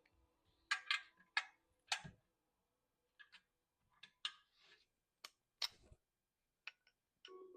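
Scattered sharp clicks and light taps of small metal hardware and hand tools being handled on a workbench, about a dozen at uneven spacing. A steady hum comes in just before the end.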